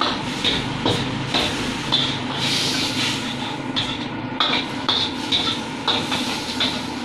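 Metal spatula clanking and scraping against a wok while noodles are stir-fried, roughly two strikes a second, over a steady frying hiss.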